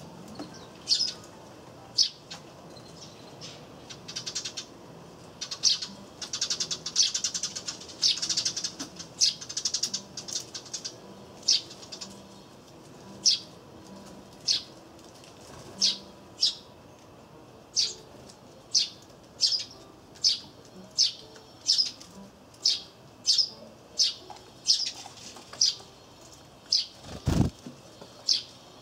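Eurasian tree sparrows chirping repeatedly: single sharp, high chirps every half second to a second, with a spell of busier twittering about five to ten seconds in.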